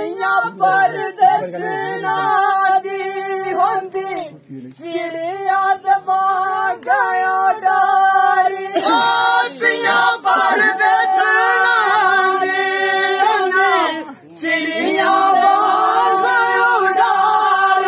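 A group of men singing a Dogri folk song together in chorus, on long held notes. The singing breaks off briefly twice, a little after four seconds and again at about fourteen seconds.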